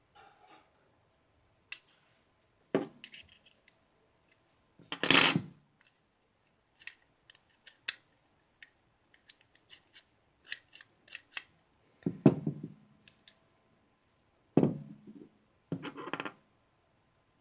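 Small steel pistol parts clicking and clacking as the locking block is worked into the frame with a tool: scattered light clicks with a few louder metal clacks, the loudest about five seconds in.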